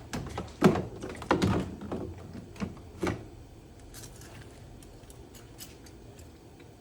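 Handling noise: a quick run of light knocks and clicks over the first three seconds as a work light and engine-bay parts are handled, then only a faint steady low background.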